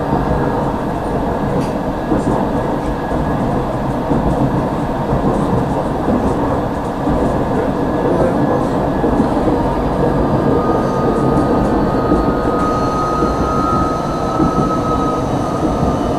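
Tram running along its track, heard from inside the car: a steady, loud rumble of wheels on rails and running gear. A thin high whine comes in near the end.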